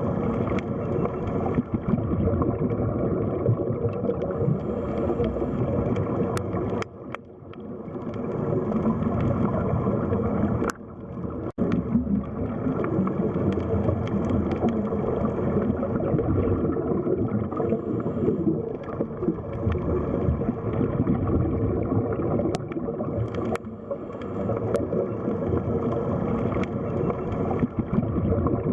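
Underwater sea ambience: a steady, muffled wash of water with gurgling. The level dips briefly about seven seconds in and again about eleven seconds in.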